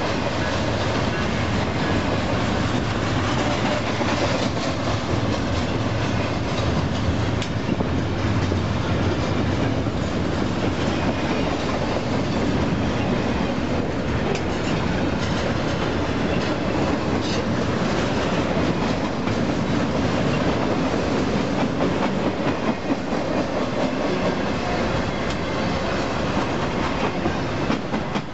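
Union Pacific intermodal freight train's double-stack cars rolling past close by: a steady rumble with a dense run of wheel clicks over the rail.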